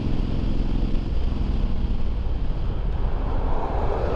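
Suzuki Boulevard M109R's V-twin engine running while riding, with wind rushing over the microphone. The engine's even note is clearest for about the first second.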